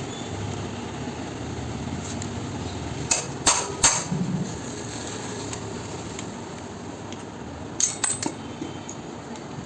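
Sharp metal knocks and clinks of tools and engine parts being handled during motorcycle engine work. Three come about half a second apart a little after three seconds in, and another quick cluster near eight seconds, over steady low background noise.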